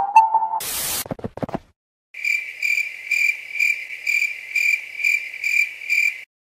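Music cut off by a short burst of static-like noise, then a crickets sound effect: steady high chirring that pulses about twice a second, the stock 'awkward silence' cue.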